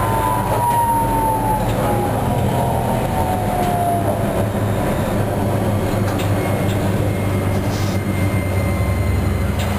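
Toyohashi Railway T1000 low-floor tram running, heard from inside the car: a steady low hum and rumble from the running gear. Over the first few seconds a whine falls steadily in pitch as the tram slows.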